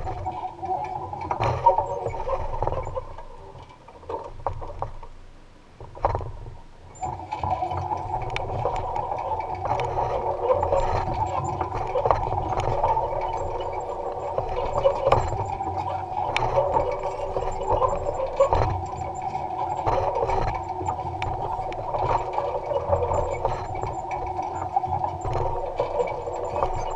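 Electric-powered Allis-Chalmers Model G tractor working a basket weeder: a steady mechanical hum with rattling and clicking from the implement. The sound drops away about three seconds in and picks back up at about seven seconds.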